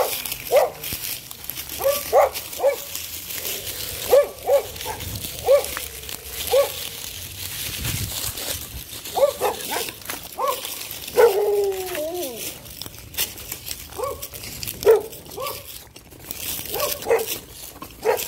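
A dog barking repeatedly in short barks, in clusters of two or three, with one longer wavering, falling bark about eleven seconds in.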